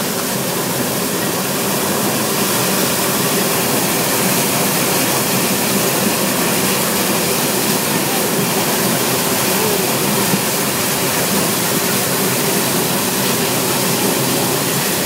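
Fire hose spraying a jet of water in a firefighting drill: a steady, loud rushing noise.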